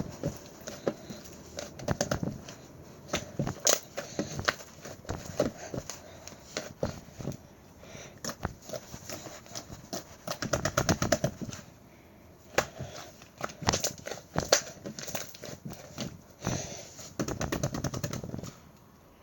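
White chewy slime being squished, pressed and stretched by hand, giving rapid sticky clicks, crackles and little pops, with denser squelching bursts about two seconds in, around the middle and near the end.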